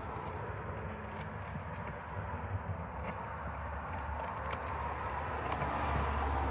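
Faint, scattered clicks and handling noises from hand work on engine intake parts, over a steady background rumble.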